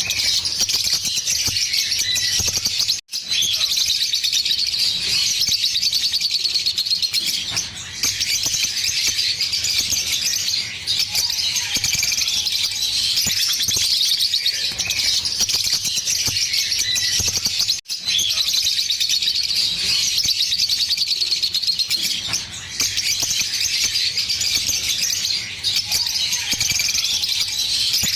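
Green Fischer's lovebirds chirping and chattering in fast, continuous high-pitched trills, the rapid run of notes lovebird keepers call giggling. The sound cuts out for a moment twice.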